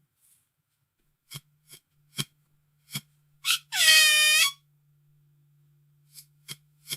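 Squeaky wooden floorboard creaking under weight: a few short creaks, then one long, high-pitched squeak about four seconds in that lasts under a second, then a few faint ticks near the end.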